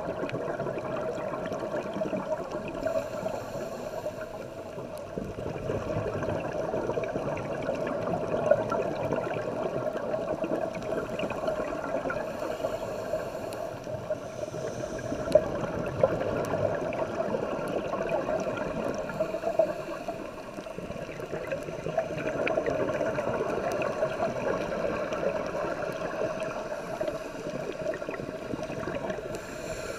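Underwater reef ambience picked up by a dive camera: a steady hum and gurgling water noise that swells and eases every several seconds, with scattered sharp clicks.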